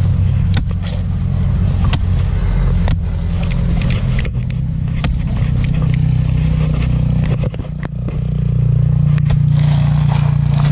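A bolo (machete) chopping into the soft, fibrous trunk of a banana plant, with irregular chops every second or so. Under the chops runs a steady low motor hum.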